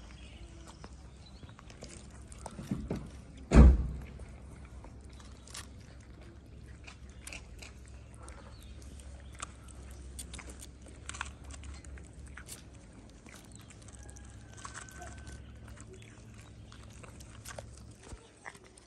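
Cats chewing and smacking on chunks of wet cat food from plastic trays, a run of small wet clicks throughout. A single loud thump about three and a half seconds in.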